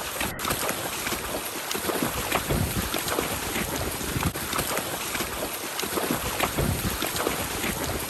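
Wind rushing over the microphone, broken by many short thuds at an uneven pace.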